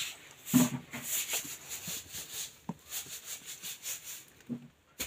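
Scuffling and rustling of two small pets play-fighting, with a few soft thumps and scratchy clicks.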